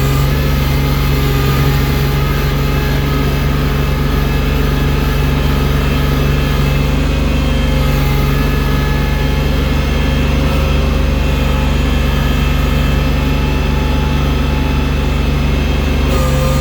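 Engine of a snow-clearing loader running steadily at a constant speed.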